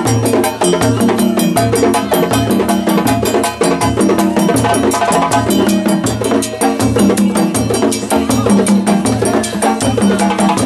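West African Malinke-style drum ensemble playing a fast, driving rhythm: djembes over steady low beats from stick-played dundun bass drums, with bells keeping time.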